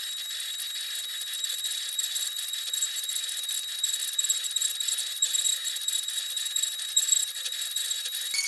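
CNC router spindle whining at a steady high pitch while its bit cuts into an oak board, with a dense crackle of fine ticks from the cutting. Near the end the whine shifts to a lower pitch.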